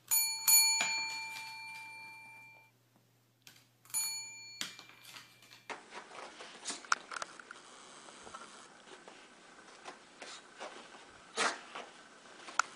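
A bell-like metallic ding, struck twice and fading away each time, then soft scattered knocks and rustling in a small room.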